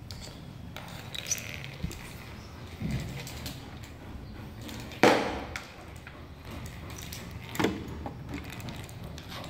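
Metal spoons knocking and clattering on a tiled floor as a kitten bats at them: a few scattered knocks, the loudest about halfway through with a short ring after it, and another sharp one about three-quarters in.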